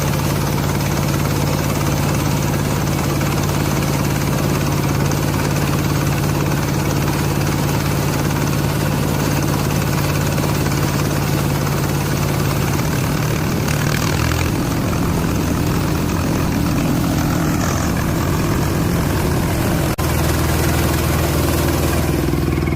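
Rice combine harvester's diesel engine running steadily under load, its pitch shifting about halfway through and again near the end.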